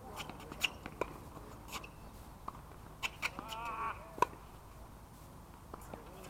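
Tennis rally on a hard court: a series of sharp pops from the ball striking strings and bouncing, the loudest just after four seconds in. A brief high squeal comes a little after three seconds in.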